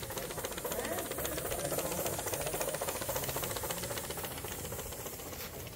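Coal-fired gauge 1 live-steam locomotive running past close by, chuffing in a rapid, even beat. It is loudest about two seconds in and fades a little as it moves away.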